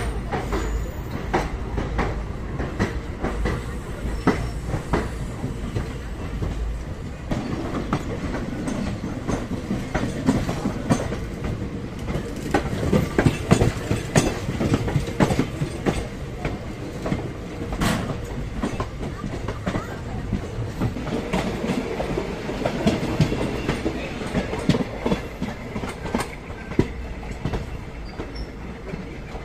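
Indian Railways express coaches pulling out of a station, wheels clattering over rail joints and points in an uneven run of clicks. A second train on the next track runs alongside. There is a heavy low rumble during the first several seconds.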